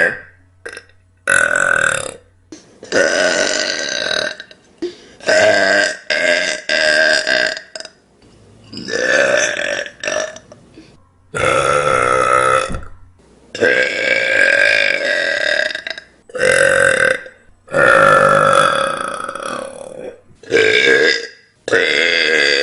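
A person burping again and again: about a dozen loud, drawn-out burps with a clear pitch, each half a second to a second and a half long, separated by short pauses.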